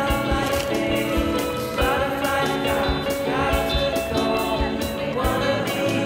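Background music: a song with singing and a steady drum beat.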